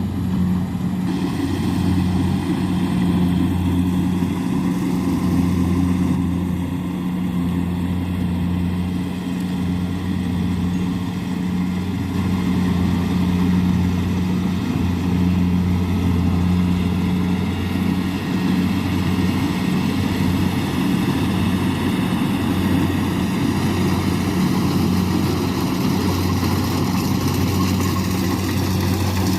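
Kubota rice combine harvester's diesel engine running at a steady, unchanging pitch with a constant drone, along with the noise of the machine at work.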